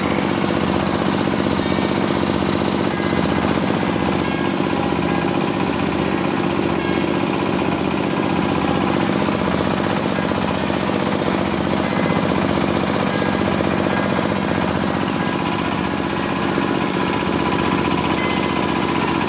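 Oil palm frond chopper running under load, its small stationary engine driving the cutting rotor as fronds are fed in and shredded. Steady rapid low pulsing from the engine under a continuous dense chopping clatter.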